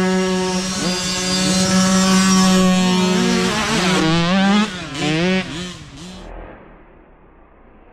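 Mini dirt bike engine running hard at steady revs as the bike comes up the trail, then revving up and down as it passes close by about four seconds in, and fading away after about six seconds.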